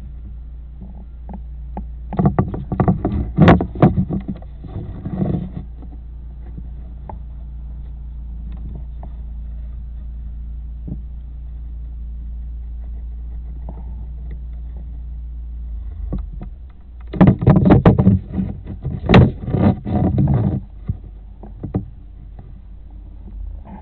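A steady low hum, broken twice by loud spells of dense clicking and rubbing noise, each about three seconds long: once a couple of seconds in and again past the middle.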